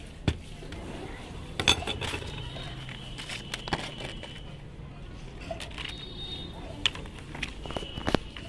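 Lead-acid battery plates and separators being handled and knocked into a stack on a stone slab: a few scattered sharp clicks and clinks, the loudest about two seconds in and near the end.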